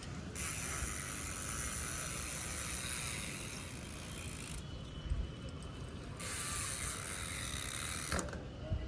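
Rear freewheel hub of a Dartmoor mountain bike ticking rapidly as the bike coasts, in two long stretches with a short break between.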